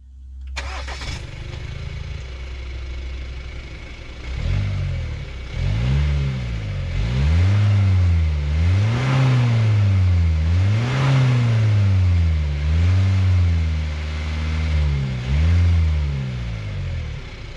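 2020 Jeep Wrangler Rubicon's 2.2-litre turbo-diesel four-cylinder, stationary, idling and then free-revved several times. Each rev rises and falls in pitch between short spells of idle, and the engine settles back to idle near the end.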